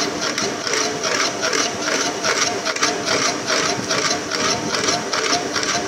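A machine running with an even, rhythmic clatter of about three to four beats a second.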